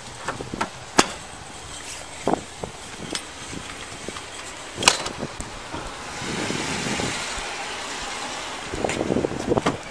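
Handling noise on a body-worn camera as the wearer walks: rustling and a few sharp clicks, the loudest about a second in and again near five seconds. A steady rushing noise swells for a few seconds in the second half.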